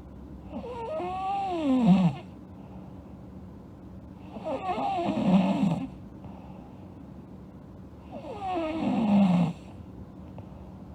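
A sleeping girl snoring: three snores about four seconds apart, each sliding down in pitch toward its end.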